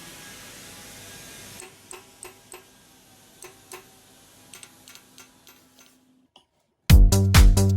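A steady hiss, then a string of small sharp clicks at uneven spacing over a faint hum, stopping just before a second of silence. Loud electronic dance music with a heavy beat starts near the end.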